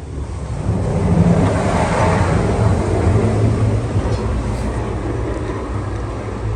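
A shop machine running steadily: a loud low hum with a rushing noise over it, building up over the first second.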